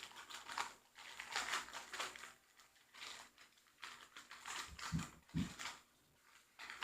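Plastic sandwich bag crinkling and rustling in short handling strokes while foam squishies are pushed into it, with two soft low thumps about five seconds in.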